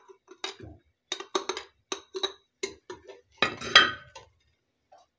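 A steel spoon clinks and scrapes against a white bowl and the inside of a pressure cooker as ghee is scooped in. It makes a series of short clinks, then a louder, longer scrape about three and a half seconds in.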